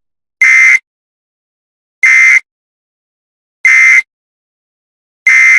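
Four short, identical electronic data bursts about a second and a half apart, with dead silence between: the end-of-message data bursts that close an Emergency Alert System broadcast.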